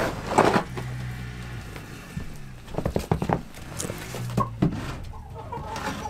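Hens clucking, with a plastic snow shovel scraping and knocking against the coop floor several times.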